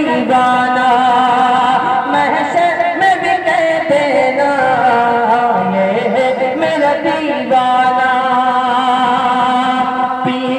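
Naat singing: a voice holding long, wavering notes without clear words.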